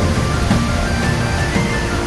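Instrumental background music: a melody of short held notes over a steady low accompaniment.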